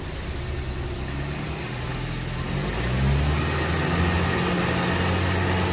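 Ford Escape's 1.6 L EcoBoost engine accelerating through the gears of its rebuilt 6F35 automatic transmission, which is fitted with a 2.0 torque converter. The engine note climbs in pitch and grows louder from about three seconds in, on a test drive of the rebuild.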